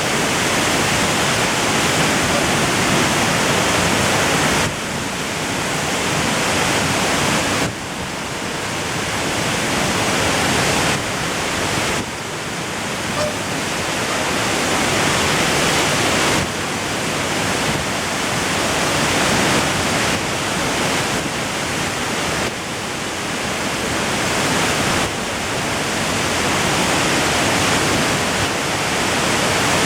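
Waterfall rushing steadily, a dense, even sound of falling water. The level drops suddenly every few seconds and climbs back.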